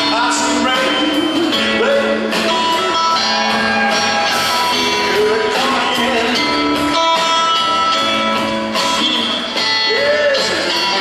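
Live rock band playing: electric guitar over drum kit and upright double bass.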